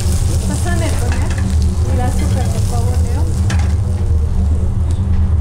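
Grapes sizzling and frying as they are tipped into a small hot saucepan on a gas burner, over a steady low kitchen hum.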